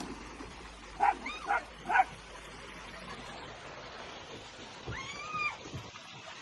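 A pet animal calling: three short, pitched calls about a second in, then a fainter, longer call that rises and falls near the end.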